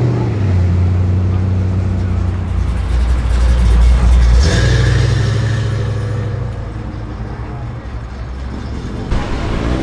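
Deep, low exhaust rumble of lowered classic American trucks pulling away at low revs. It is loudest as a classic Chevrolet panel truck passes close about four seconds in, steps up in pitch just after, then fades as it drives off.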